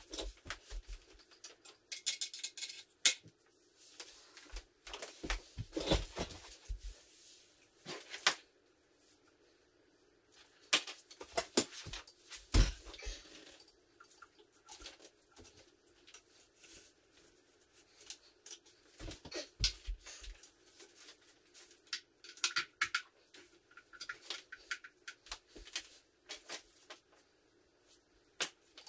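Sped-up clatter of electronic drum kit hardware being assembled: dense runs of clicks, knocks and rattles from metal and plastic parts being handled, with quieter stretches between.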